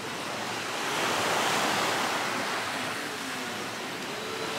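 Sea waves washing in, a steady rush that swells about a second in and slowly eases off.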